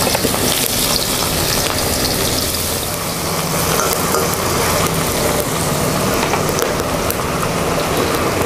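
Potato sticks frying in hot oil in a kadai: a steady sizzle with dense small crackles.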